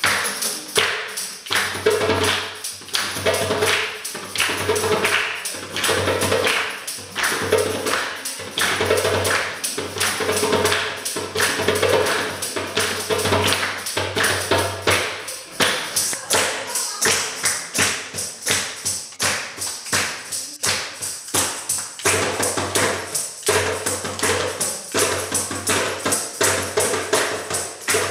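Hand drum (djembe) slapped in a fast, steady rhythm with a tambourine's jingles shaken and struck over it, and hands clapping along.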